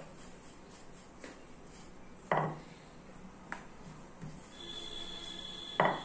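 Wooden rolling pin on a stone countertop: soft rolling and small clicks, with two loud wooden knocks as the pin strikes the counter, one a little past two seconds in and one near the end.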